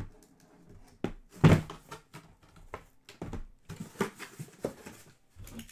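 Small cardboard boxes of trading cards, still in their shrink wrap, being set down and stacked on a table: a string of light thumps and knocks, the loudest about a second and a half in.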